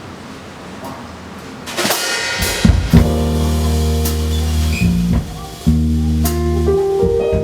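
Live band starting a song: low room sound for about two seconds, then a cymbal crash and drums come in, and sustained low chords start about three seconds in.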